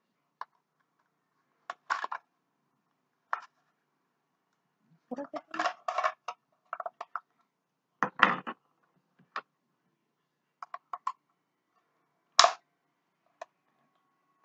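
Hard plastic parts of a unicorn taco holder clicking, knocking and rattling as they are handled and pushed together, in scattered short bursts with pauses between.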